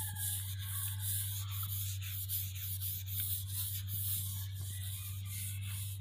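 Flat paintbrush swishing as clear finish is brushed onto a wooden tabletop, over a steady low hum.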